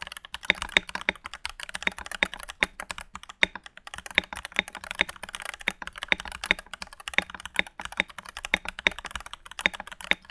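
Typing on a stock, unmodded Keychron V1 mechanical keyboard (plastic case, tray-mounted steel plate, factory foams, PBT keycaps): a steady, continuous run of sharp keystroke clacks, several a second.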